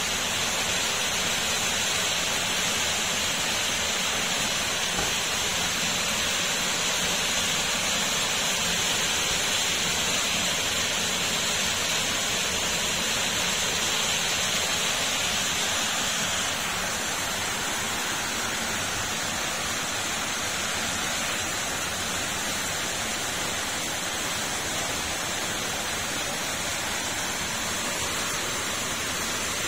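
Steady rushing noise with no distinct events, like rain or running water; its higher hiss drops off about sixteen seconds in.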